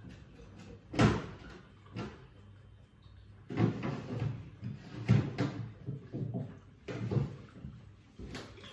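Kitchen knocks and clatter of things being handled: one sharp knock about a second in, a lighter one a second later, then a run of bumps and rattles.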